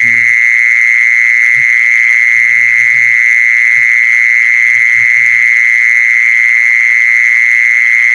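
An animal's continuous high-pitched trill, steady and unbroken, with a few faint low croaks in the first half.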